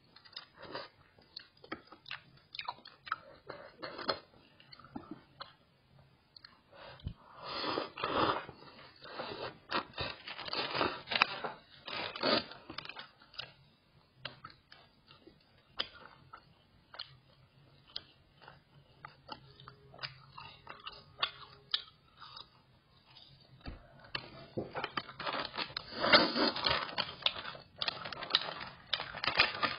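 A person eating close to the microphone: chewing and slurping noodles, with many small, sharp mouth clicks. Near the end a plastic snack packet crinkles as it is handled.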